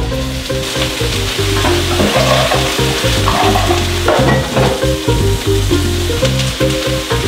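Chopped onions sizzling as they fry in olive oil in a stainless steel pan. Background music with a low, stepping bass line plays throughout.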